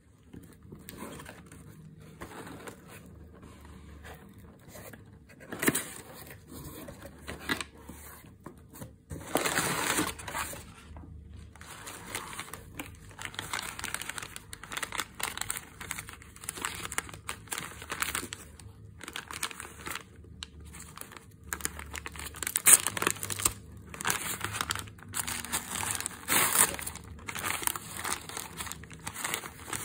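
Newspaper wrapping crinkling and rustling as it is handled and unwrapped inside a cardboard box, in irregular crackles with a few louder scrunches.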